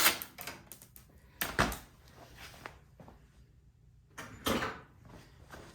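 Scattered clicks, knocks and short bursts of tools and carburetor mounting bolts being worked loose and handled on a snowblower engine.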